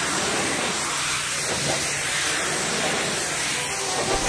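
Pressure washer's high-pressure water jet blasting grime off the base of a brick wall and paving: a steady hiss.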